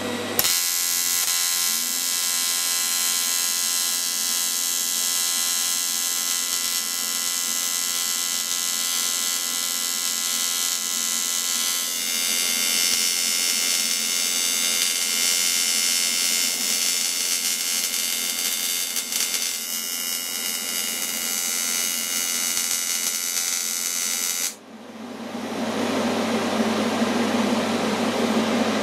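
AC TIG welding arc buzzing steadily, set to 90 Hz AC, brazing a cracked cast iron grate with bronze filler rod. The buzz cuts off sharply near the end, leaving a steady fan-like hiss.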